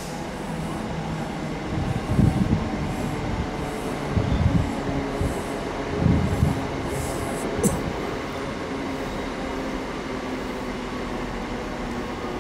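Train running through a railway station: a steady rumble, with four heavy low thumps in the first eight seconds or so.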